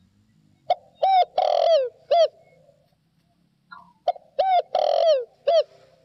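Spotted dove cooing: two phrases about three seconds apart, each of four notes, with a long falling coo between short ones.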